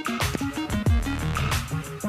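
Background music with a steady beat: electronic bass drum hits with a falling pitch over a pitched bass and synth line.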